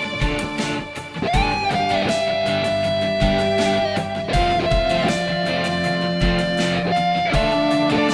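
Instrumental music: a held lead melody that bends up in pitch about a second in, over a low drum beat about once a second.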